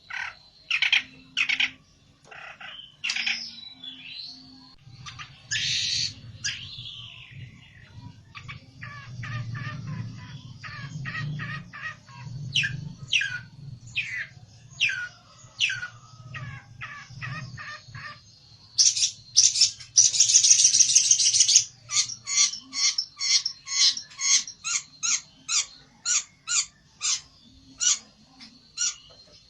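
Pelentet songbird calling excitedly: a long run of sharp, high chirps repeated in quick succession, broken by a fast buzzy rattle about two-thirds of the way through. A low hum sits underneath for much of the middle.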